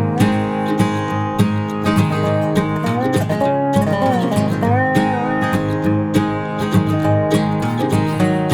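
Background music led by acoustic guitar: strummed and plucked strings under a sliding melody line, with a steady beat.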